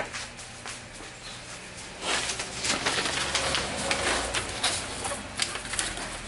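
Aerosol spray paint can hissing in spurts from about two seconds in, with a few scattered clicks of handling before it.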